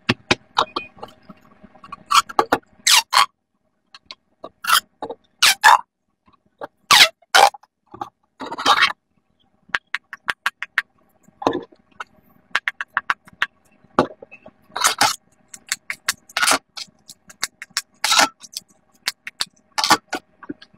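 Silicone pop-it fidget toys being pressed bubble after bubble: runs of quick soft pops and clicks, coming in bursts with short pauses between them.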